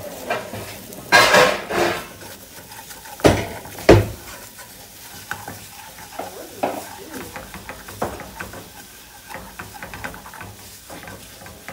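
Breakfast sizzling in a frying pan while a utensil scrapes and clatters against it. A loud scrape comes about a second in, then two sharp knocks on the pan, then lighter clicks over the steady frying.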